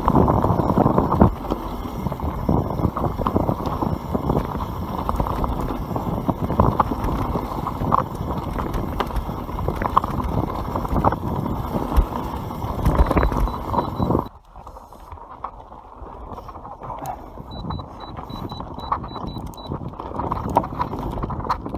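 YT Capra full-suspension mountain bike descending a dirt trail at speed: tyres rolling over dirt and the bike rattling and knocking over bumps, with rushing wind on the microphone. About two-thirds of the way through the sound drops suddenly to a quieter rolling and rattling.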